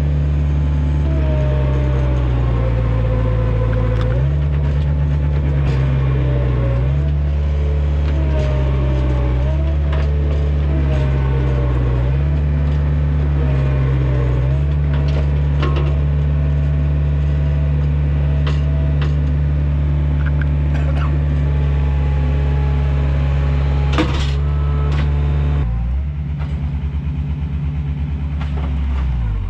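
Takeuchi TL130 track loader's diesel engine running hard, its note stepping up and down as the hydraulics load and unload, with a gliding whine over it. A single sharp crack or clank comes about 24 seconds in, and the engine note changes and settles shortly after.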